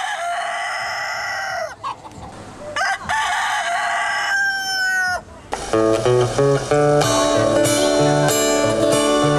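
A rooster crowing twice, each crow long. About five and a half seconds in, acoustic guitar music starts.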